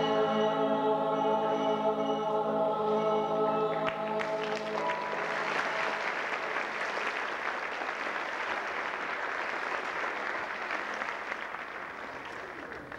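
A mixed choir holds its final chord for about four seconds, then the audience breaks into applause that slowly fades.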